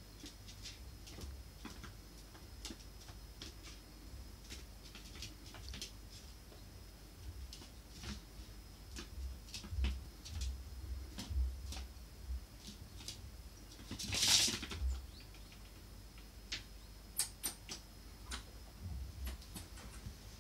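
A Eurasian red squirrel's claws tick and patter irregularly on a linoleum floor as it hops and scampers about. A louder scrabble of claws comes about fourteen seconds in.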